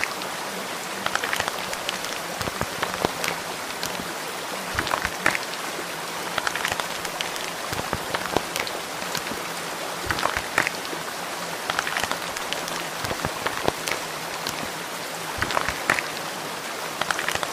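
Steady rain with many sharper drop sounds scattered through it.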